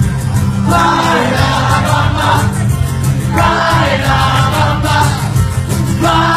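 Live band playing a rock-and-roll cover: a vocal line sung over bass guitar and drums with cymbals, loud and continuous.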